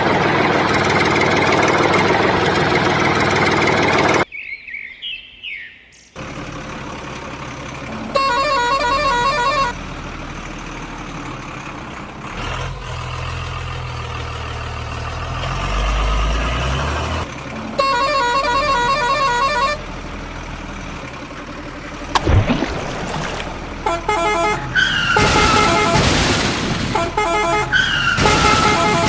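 Cartoon vehicle sound effects: an engine running, with two long horn honks, a low rumble partway through, a single bang a little after the middle, and falling whistle-like tones near the end.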